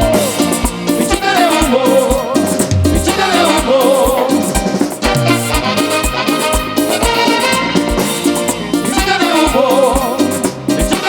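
Latin tropical dance music in the salsa style: an instrumental passage with a steady drum beat under a wavering melody line.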